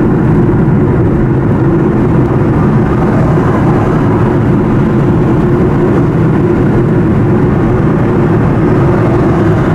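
Steady driving noise of a car moving at road speed, heard inside the cabin.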